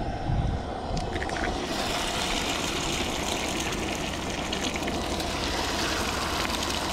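Eggs frying in hot oil in a cast-iron skillet: a few sharp clicks of eggshell cracking, then a steady sizzle that starts about two seconds in as an egg hits the oil.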